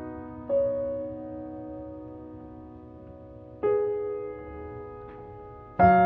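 Slow, gentle piano music: soft chords struck three times and left to ring and fade, the last near the end the loudest.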